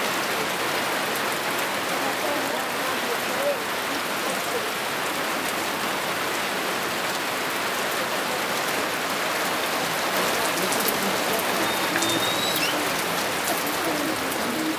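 Steady rain falling, an even hiss, with some sharper individual drops in the last few seconds.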